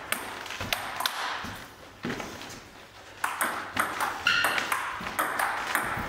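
Table tennis rally: the ball clicking off the bats and bouncing on the table. There are a couple of taps about a second in, then a quick exchange of about three hits a second from about three seconds in.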